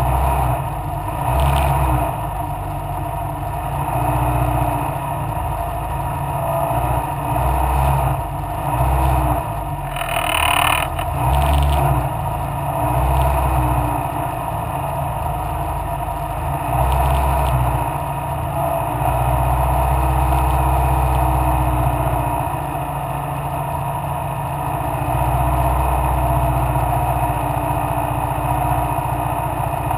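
Mallock Mk8B racing car's engine running hard under way, its pitch rising and falling with the revs, over a heavy low rumble. There is a brief hissing burst about ten seconds in.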